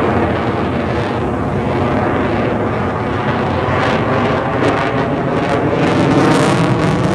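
Loud, steady noise of an airplane flying over, growing slightly louder in the last second or two, with crackling in the second half.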